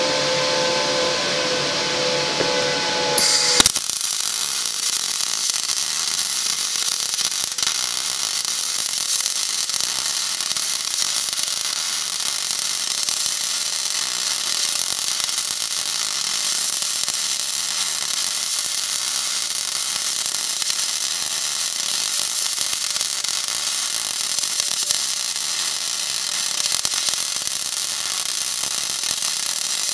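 MIG welding arc striking about three and a half seconds in, then running steadily as a continuous crackling hiss while a bead is laid on a preheated cast iron blower housing cap. This is the steady sound that a correctly running weld on cast iron should make.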